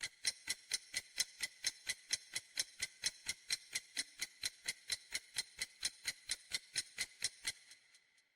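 Clock-ticking countdown timer sound effect: evenly spaced ticks, about four a second. They stop about seven and a half seconds in.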